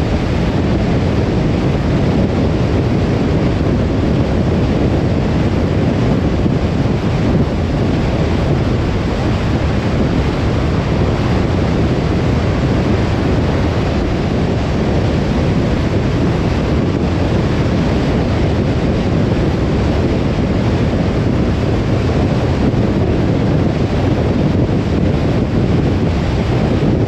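Steady road noise of a car driving: an even, unbroken rumble, heaviest in the low end, with no changes in speed or pitch.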